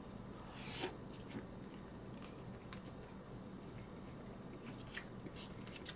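Faint sounds of people eating instant ramen noodles: quiet chewing, with a few soft clicks of forks in the noodle cups and a brief hiss about a second in.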